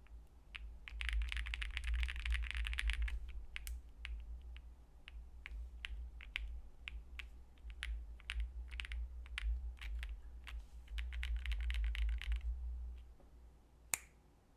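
Typing on a Space65 R3 custom mechanical keyboard with Nebula switches lubed with Krytox 205g0, a POM plate with a PE foam mod, and GMK keycaps. Two fast runs of keystrokes, about a second in and again near 11 seconds, with scattered single keystrokes between and one louder single key click near the end.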